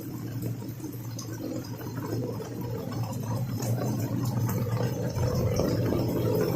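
Heavy rain falling, with many small drop ticks over a steady wash. Under it is a steady low hum that grows louder toward the end.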